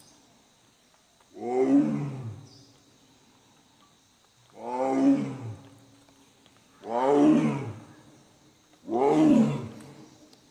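Tiger roaring four times in a slow series, about two seconds apart. Each roar lasts about a second and falls in pitch.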